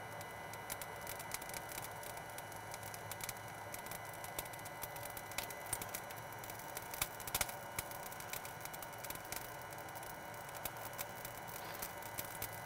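Fogo premium lump charcoal crackling and popping with scattered sharp snaps as an electric hot-air lighter heats it to ignition and it starts to throw sparks. A cluster of louder pops about seven seconds in, over a steady faint hum.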